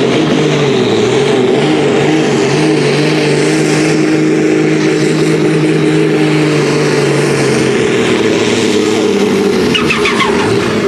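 Diesel pulling tractor's engine running flat out under load as it drags a weight sled, a loud steady drone held at one pitch; about eight seconds in the steady note breaks up.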